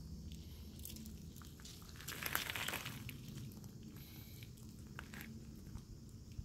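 Siberian husky puppy's paws shifting and crunching on wet pebble gravel as it sniffs and walks, faint small clicks with a louder scuffle about two seconds in.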